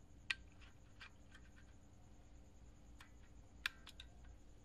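A few faint, sharp metal clicks and taps from a homemade gun being handled just after its test shot. The sharpest click comes about a third of a second in, and another comes near the end.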